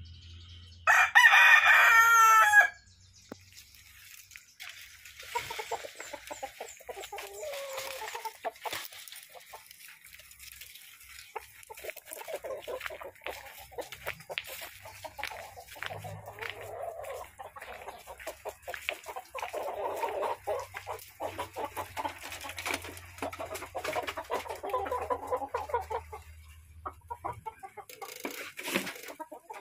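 A white rooster crows once, loudly, about a second in, a call under two seconds long. Chickens then cluck on and off for most of the rest.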